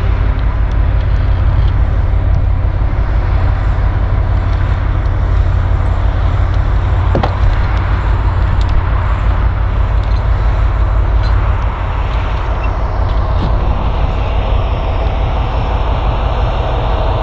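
Semi truck's diesel engine idling steadily, close by: a loud, even low rumble.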